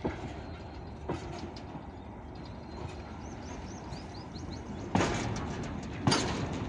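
Goods train of covered wagons: a steady low rumble with sharp metallic clanks, one about a second in and two more close together near the end.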